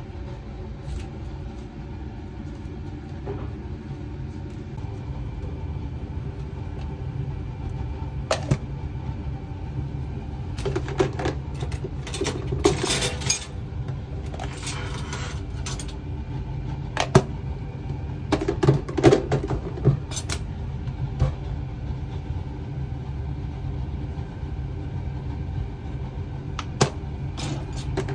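Kitchen utensils and dishes clinking and knocking at irregular intervals, busiest around the middle, over a steady low hum.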